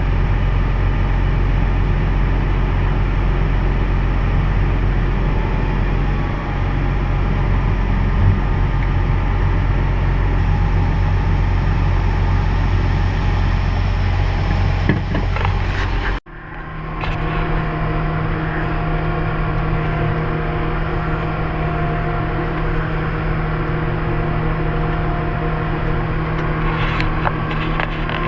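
Heavy farm machinery running steadily with a deep rumble. An abrupt cut about sixteen seconds in switches to another machine running with a steady whine over its engine.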